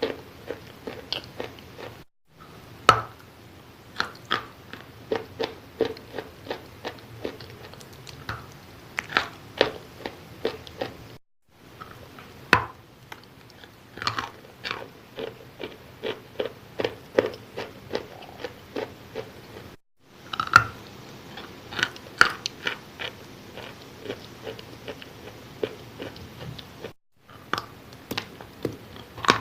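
A person biting and chewing wet chalk close to the microphone: crisp crunches and crackles, several a second, with a few louder bites. The crunching breaks off into silence for a moment four times.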